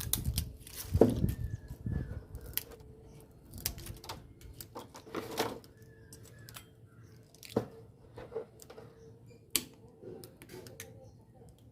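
Scissors snipping the insulation paper slips in a ceiling fan stator's slots: a handful of sharp snips and paper rustles spaced a second or two apart.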